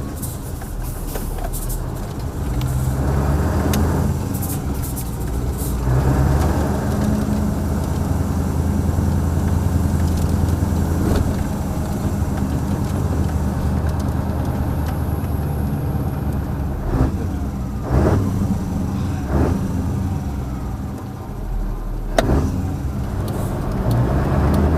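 A 1989 Mercedes-Benz SK 1748 truck's V8 turbodiesel running under way, its engine note stepping up a couple of times in the first several seconds and then holding steady. Several short, sharp sounds cut through in the second half.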